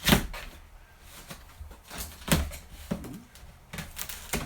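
Cardboard shipping box being handled and opened: a sharp knock at the very start, then scraping and rustling with further knocks about two seconds in, near three seconds and near the end.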